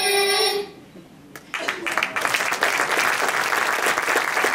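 Recorded dance music cuts off under a second in; after a short pause, an audience breaks into steady applause.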